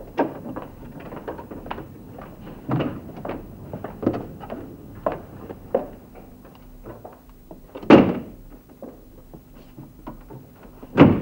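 A run of small knocks and clicks of things being handled, then two loud door thuds, about eight and eleven seconds in.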